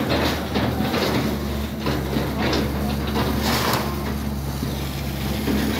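Demolition claw excavator's diesel engine running steadily, with irregular clattering noises over it from the work at the rubble.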